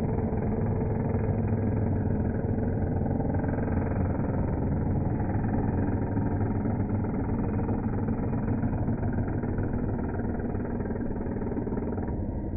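Festool electric hand planer running steadily under load, its cutter head chewing through an oak board to leave an adze-like finish.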